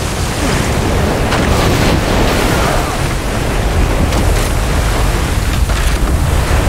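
Film sound of a hurricane: heavy rain and strong wind over rushing storm-surge flood water, with a deep low rumble underneath.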